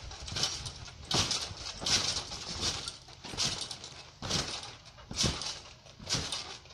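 Trampoline being bounced on: a regular thump from the mat and springs about every 0.8 seconds as a jumper lands and takes off again.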